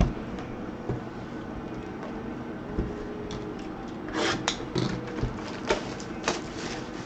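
A cardboard trading-card box and its wrapped packs being handled and opened: scattered sharp clicks and taps, with a brief rustling tear about four seconds in, over a steady background hum.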